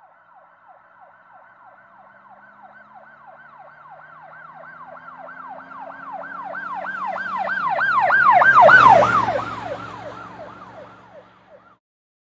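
An emergency vehicle siren on a fast yelp, sweeping up and down about three times a second, with a low vehicle rumble beneath it. It grows steadily louder as it approaches, is loudest about nine seconds in as it passes, then fades and cuts off near the end.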